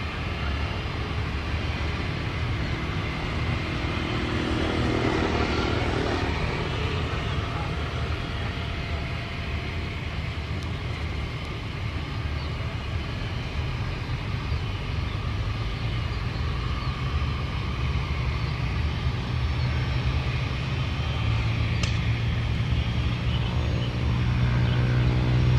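Twin-engine Airbus A320-family airliner's jet engines running as it rolls along the runway, a steady low rumble. The engine of a passing motorbike on the nearby road rises and falls about five seconds in, and another builds near the end.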